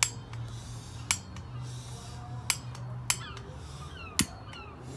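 A handful of sharp, separate clicks, about a second apart, over a steady low hum. A bird gives short falling chirps in the background during the second half.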